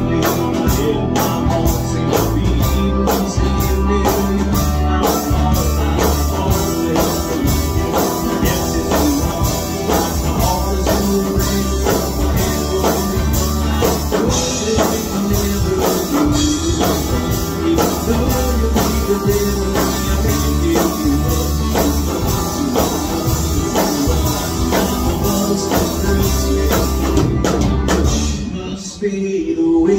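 Live band playing a country-rock song: electric guitar, bass guitar and drums with a steady beat. The sound thins briefly near the end.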